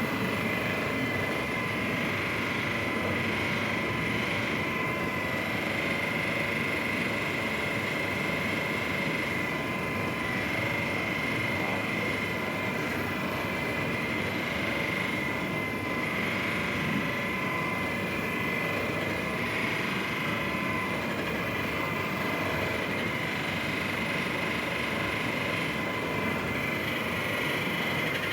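Handheld percussive massage gun running steadily: a continuous motor buzz with a steady high whine.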